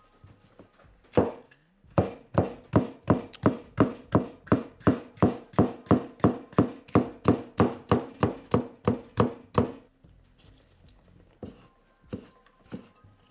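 Minamoto No Masakane 270mm carbon-steel gyuto slicing a red bell pepper on a wooden cutting board. One cut about a second in, then a steady run of knife-on-board knocks, about three or four a second, for roughly eight seconds, and a few lighter taps near the end.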